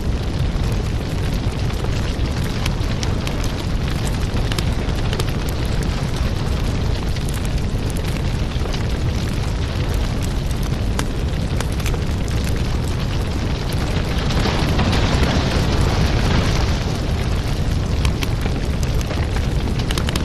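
Firewood fire burning, with a steady low rumble and dense crackling and popping throughout. It grows briefly louder and more hissing from about fourteen to seventeen seconds in.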